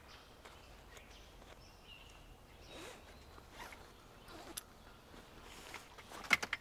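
A fabric duffel bag being handled and zipped shut: quiet rustling, a zipper pulled along, and a few sharp clicks near the end.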